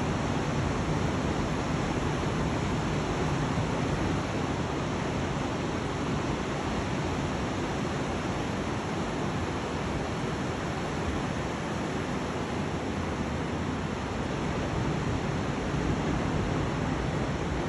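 Ocean surf breaking on the beach below, heard as a steady, even rushing noise with no separate wave crashes standing out.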